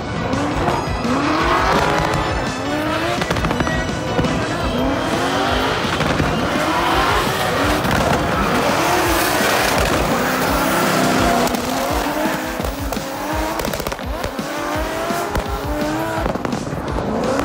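A pair of drift cars sliding through a corner together, their engines revving up and falling back over and over, with tyres squealing continuously.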